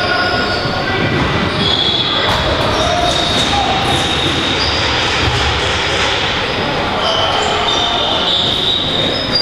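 Echoing game sound of indoor box lacrosse: players' shouts, high squeaks of shoes on the arena floor, and knocks of sticks and ball, all in a steady mix.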